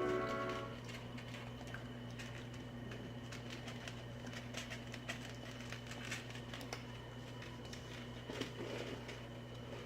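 Outro music fading out in the first second, then faint room tone: a steady low hum with scattered faint ticks and clicks.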